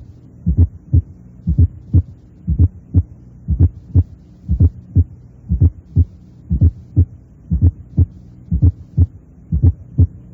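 Recorded heart sounds at about one beat a second, over a steady low hum. Each beat is a triple rhythm: an atrial (fourth) heart sound about 0.11 s before the first heart sound, then the second heart sound. This is a presystolic gallop, clearly separated from the first sound.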